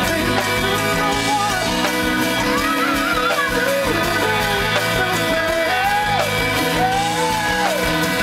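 Live funk-soul band playing: a male lead vocal sung over electric bass, keyboard, guitar and drums, at a steady loud level.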